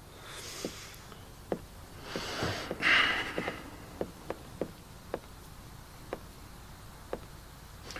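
Quiet room with scattered light taps, about a dozen at irregular spacing, and a few short hissing swells, the loudest about three seconds in.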